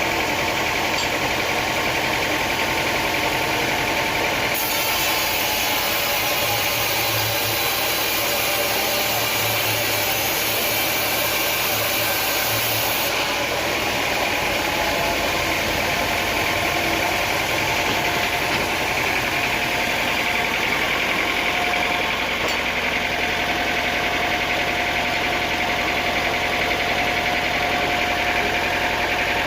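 Sawmill machinery running steadily, a continuous engine-like drone with no distinct cut or impact standing out.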